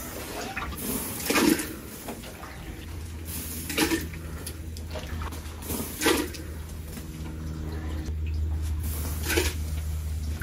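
Pieces of raw beef tripe and cow's feet dropped into a pot of boiling water: four splashes about two to three seconds apart, over a low steady hum.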